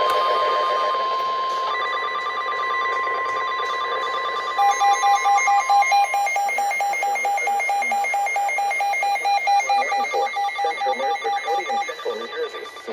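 NOAA Weather Radio warning alert tones: a steady alarm tone near 1050 Hz holds until about six seconds in. From about four and a half seconds it is joined by a rapidly pulsing beep, about five pulses a second, that stops just before the announcement begins.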